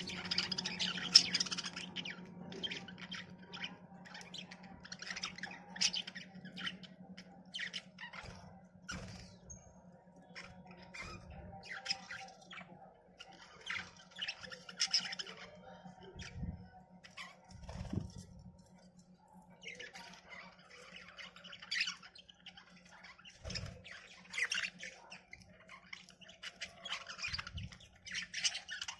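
Budgerigars chirping and chattering in scattered bursts of short, high calls with pauses between.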